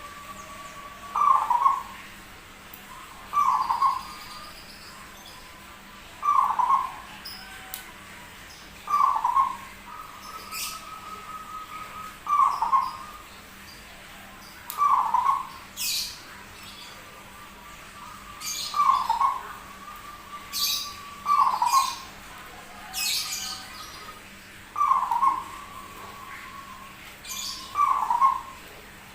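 Zebra dove (perkutut) cooing over and over, one short low phrase every two to three seconds, in a song that sounds unusual for the species.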